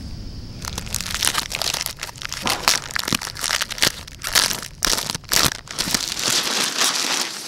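Packaging being torn and crumpled off a roll of vinyl sheet flooring: irregular crinkling and ripping that starts about half a second in.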